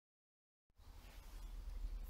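Dead silence, then about two-thirds of a second in a faint, steady low rumble with a light hiss starts: the camera microphone's ambient sound in an underground concrete shelter tunnel.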